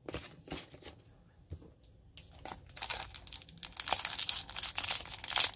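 Foil Pokémon TCG booster pack wrapper crinkling and being torn open by hand: a few light clicks at first, then from about two seconds in a dense crinkle that grows louder.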